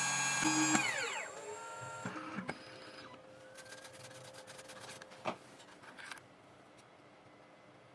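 2M2TANK 2 Pro CNC key cutting machine's cutter spindle running with a steady high whine, then spinning down with a falling pitch about a second in as the cut on the key blank ends. A few light clicks and a spell of rapid ticking from the machine follow.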